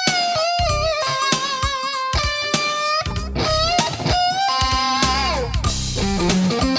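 Electric guitar playing a fast minor-key lead lick, the Cm7b5 sweep lick, with string bends and vibrato. About five seconds in, a held high note slides down in pitch, and lower notes follow.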